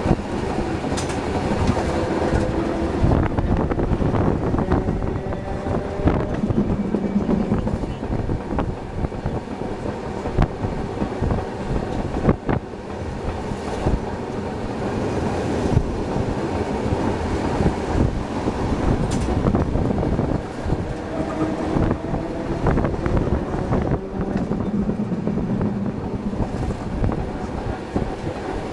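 Vintage Perley Thomas streetcar in motion: a steady rumble and rattle of steel wheels on the rails, with frequent clicks and knocks. A faint whine rises and falls twice.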